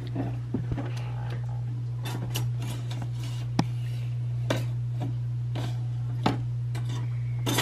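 Scattered light clicks and knocks of kitchen things being handled at a toy oven, over a steady low hum.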